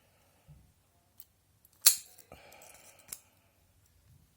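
Small padlock being handled: one sharp metallic click about two seconds in, then light scraping and a smaller click.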